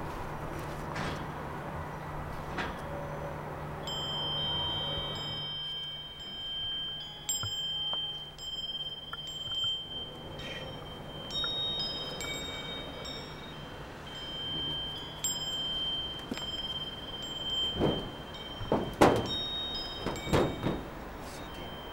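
High chime tones, like wind chimes, ringing at several pitches and overlapping, coming in about four seconds in after a low steady hum. A few short, louder rushing noises come near the end.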